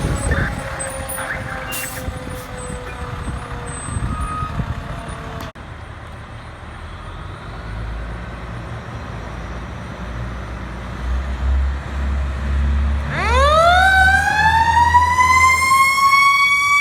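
Fire truck's Federal Q mechanical siren: first a siren winding down and fading away, then, over a low truck rumble, a Q siren spinning up about thirteen seconds in, rising steeply in pitch and settling into a steady high wail.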